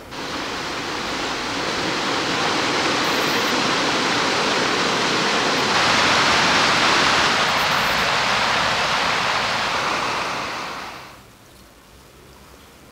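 Steady rushing of water that starts suddenly, grows a little louder about six seconds in, and fades away about eleven seconds in.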